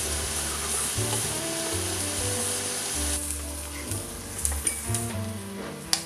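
Chopped onion sizzling as it fries in hot oil in a pot while being stirred, over background music with a steady bass line. The sizzling fades about three seconds in, and a few light clicks follow near the end.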